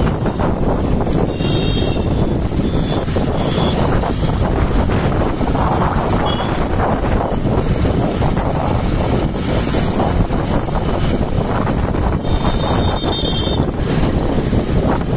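Wind rushing over the microphone and the rumble of road traffic while riding through city streets. Short high-pitched tones cut in a few times, the longest for about a second near the end.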